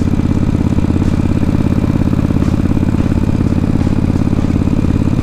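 Yamaha Virago cafe racer's V-twin engine running at a steady cruise, a rapid, even exhaust pulse at unchanging speed, heard from the rider's seat.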